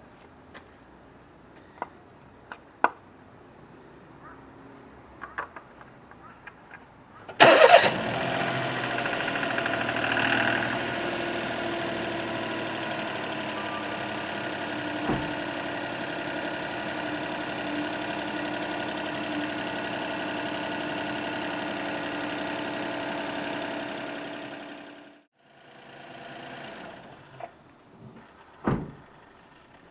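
Light clicks and knocks, then a Daihatsu Move Conte's three-cylinder engine cranks and starts about seven seconds in, idles steadily for about seventeen seconds and is switched off. A single thump follows near the end.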